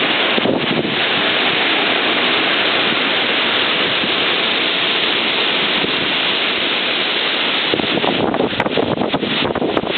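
Strong wind gusts of about 40–45 mph blowing hard across the microphone as a loud, steady rush, turning choppy and buffeting about eight seconds in.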